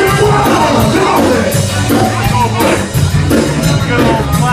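Loud rock music with singing and a steady drum beat.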